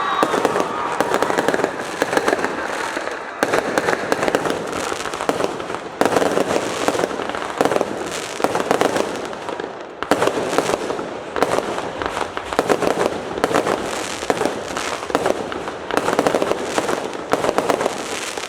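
Fireworks going off: a dense, continuous crackle of many small pops and bangs, swelling and easing in waves every few seconds.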